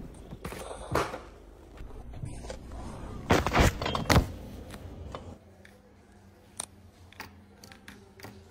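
Knocks, bumps and rubbing picked up by a camera worn by a cat as it moves across a desk, with a cluster of loud thumps around three to four seconds in. After about five seconds it quietens to a faint steady hum with a few small clicks.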